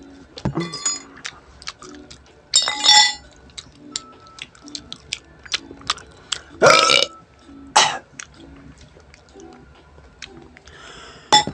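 A man burps loudly while eating. The loudest burp comes around the middle, among shorter slurping and mouth noises.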